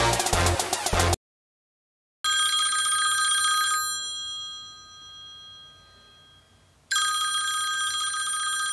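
A telephone ringing twice, each ring a set of bright steady tones that sound for about a second and a half and then fade. Electronic dance music plays at the start and cuts off about a second in, before the first ring.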